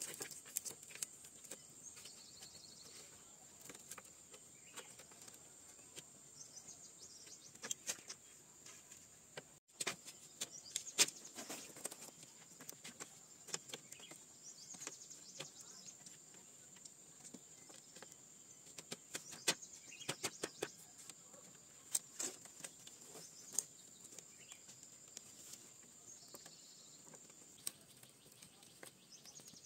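Faint outdoor rural ambience: a steady high hiss with scattered light clicks and knocks and a few faint bird chirps.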